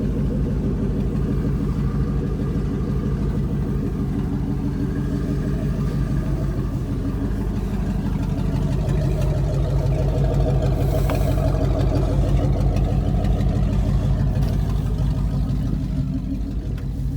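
Ford 460 (7.5-litre big-block V8) truck engine running steadily, its note shifting and getting a little louder for several seconds in the middle.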